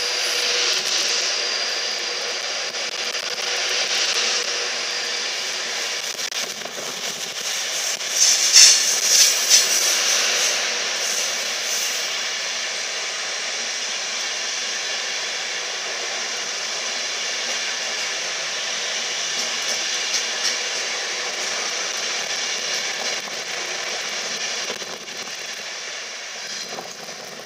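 Virgin Trains Class 390 Pendolino electric train pulling out along the platform and running past, a steady rush of motor and wheel noise. A burst of louder clattering clicks comes about eight to ten seconds in. The sound fades near the end as the train draws away.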